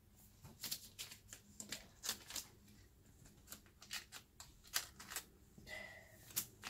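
Trading cards being handled and slid against the plastic pockets of a card-collector's binder: a faint run of light, irregular rustles and clicks of card on plastic sleeve.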